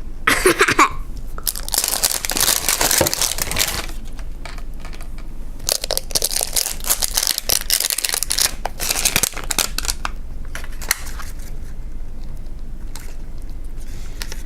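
Plastic wrapping of an L.O.L. Surprise toy being crinkled and torn open by hand, in three long stretches of rustling, then quieter scattered crackles for the last few seconds.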